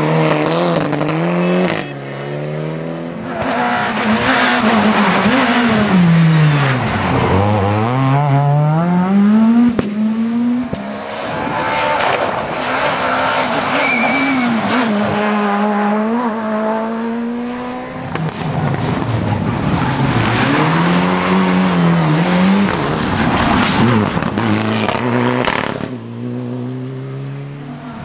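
Rally cars at full race pace on a special stage, their four-cylinder engines revving hard, with the pitch climbing and dropping over and over as they brake, change down and accelerate up through the gears. First a Mitsubishi Lancer Evolution pulls away, then a Skoda Fabia S2000 comes through.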